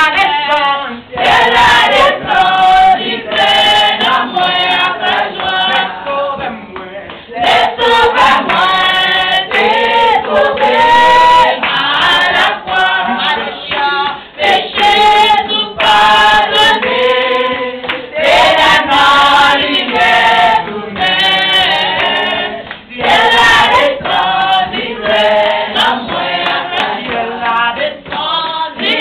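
A group of voices, mostly women, singing a worship song together, with hand clapping throughout.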